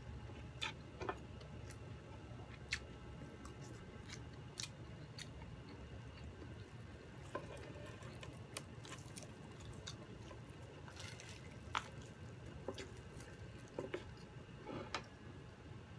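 Close-miked eating: wet chewing and scattered lip smacks and clicks, with crispy fried chicken being handled and pulled apart by hand, over a steady low hum.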